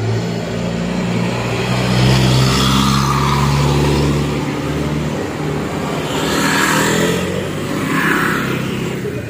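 A motor vehicle's engine running close by with a low hum. It is loudest around two to four seconds in and fades after about five seconds, and more traffic noise swells near the end.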